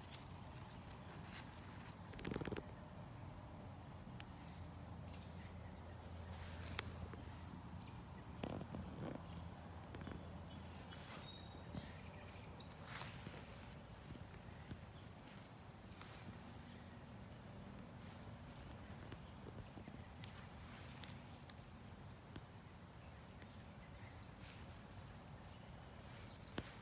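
An insect chirping a faint, high, rapidly pulsing trill that keeps going with a couple of short breaks. It is joined by occasional soft rustles and clicks.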